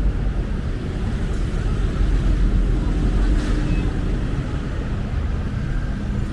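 Steady low rumble of city road traffic passing close by.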